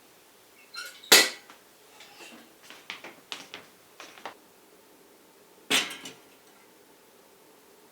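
Kitchenware being handled: dishes and utensils clinking and clanking, with two louder clanks, one about a second in and one near six seconds, and lighter clinks between them.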